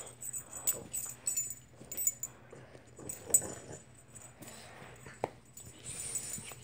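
A small Bugg dog (Boston terrier–pug mix) moving about, with scattered soft rustles, small clicks and a faint breathy snuffle about six seconds in.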